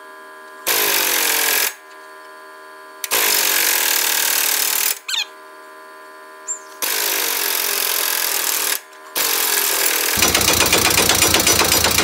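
Pneumatic air hammer on the metal of a semi truck's driveshaft yoke, fired in four bursts of one to three seconds. The last and longest burst, near the end, is a fast, even rattle.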